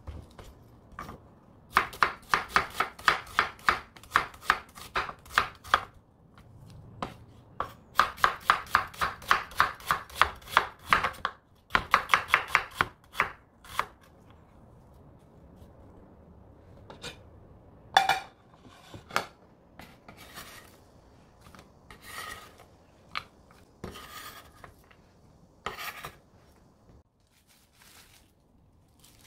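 Chef's knife slicing an onion on a wooden cutting board: three quick runs of sharp blade strikes on the board, about four a second, in the first half. After these come scattered single knocks and rubbing.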